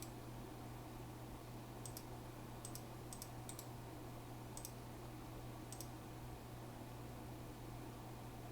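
A few scattered, faint clicks from working at a computer, bunched around two to four seconds in, over a steady low hum.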